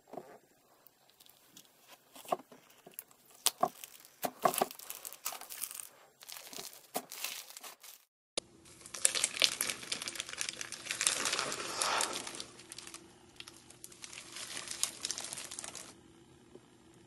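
Hand-squeezed slime crackling and popping. First, fingers pressing a clear slime with beads mixed in give scattered sharp pops and clicks. After about eight seconds, two hands squeezing a thick, textured slime give a dense, continuous crackle that fades near the end.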